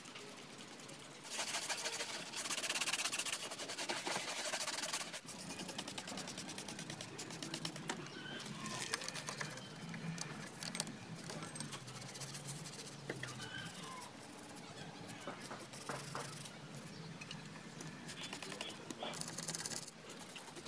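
Trigger spray bottle squirting soapy water onto a scooter's front wheel and disc brake, in a run of quick sprays near the start and again near the end. In between come light scratchy rubbing and scrubbing sounds as the wheel and brake disc are cleaned by hand.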